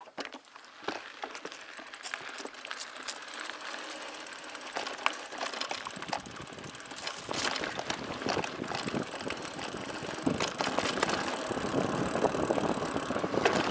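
Mountain bike rolling along a dirt singletrack: tyres running over dirt, with the bike rattling in many sharp clicks and knocks. The rolling noise grows louder and deeper from about seven seconds in.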